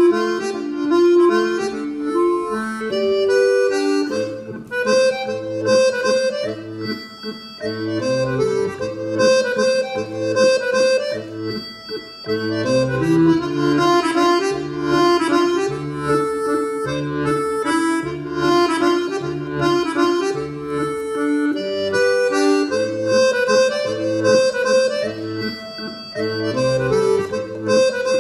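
Live Breton folk music from a small band: a melody line over a pulsing bass, with a short break in the melody about twelve seconds in.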